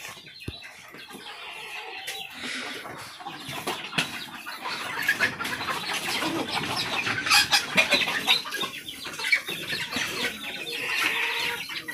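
Chickens clucking, with a few sharp knocks.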